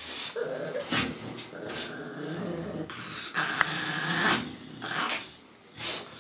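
An English bulldog and a Yorkshire terrier growling low and snuffling, in uneven bursts with short pauses.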